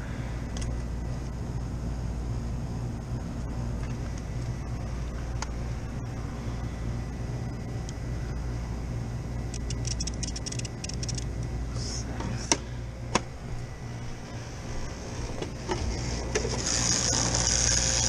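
Steady low machine hum of a rooftop walk-in freezer condensing unit running. A quick run of small clicks comes about ten seconds in, then two sharp clicks a little later, as the mechanical defrost timer's dial is handled; a high hiss comes up near the end.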